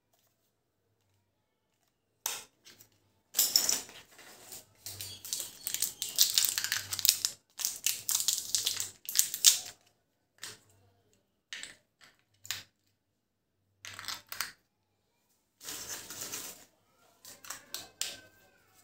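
Batteries being fitted into a plastic fan remote control: irregular sharp plastic clicks, scrapes and rattles from the battery cover and the cells. They start about two seconds in, are busiest for the next several seconds, then come in scattered clicks.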